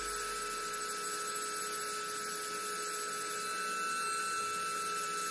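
A steady electric hum with a thin high whine over a hiss, even in level throughout, with no scraping strokes standing out.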